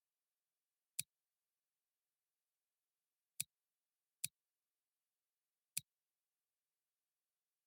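Four short, sharp clicks at uneven intervals, with dead silence between them.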